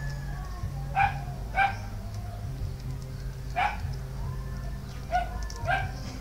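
A dog barking in short single barks, five in all, the last two in a quick pair, over a steady low hum.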